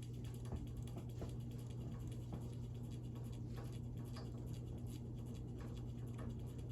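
Emerson Casablanca Classic ceiling fan running: a steady motor hum with irregular light ticks and rattles, which the owner puts down to vibration.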